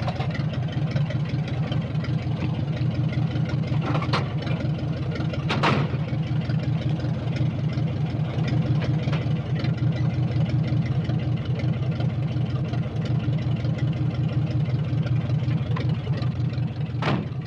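Antique car engine idling steadily with an even run of firing pulses. Over it, car doors clunk: a click about four seconds in, a louder shut a second and a half later, and another shut near the end.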